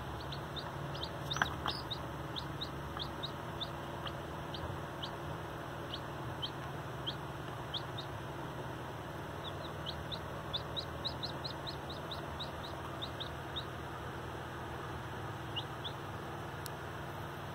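Baby chicks peeping: many short, high cheeps that each drop in pitch, coming in irregular runs over a steady background hiss.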